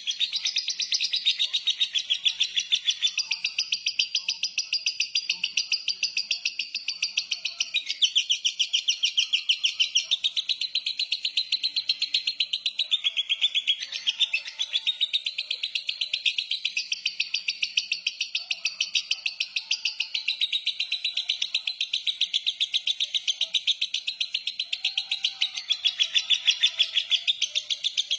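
Lovebird ngekek: one long unbroken chattering trill, a fast, even train of shrill pulses at about four to five a second that runs without a pause. This is the long 'konslet' style of ngekek.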